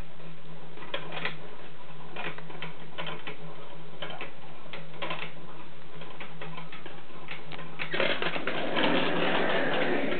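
Mongolian gerbils scrabbling and rustling in wood-shavings bedding: irregular light clicks and scratches, turning into a denser rustle about eight seconds in.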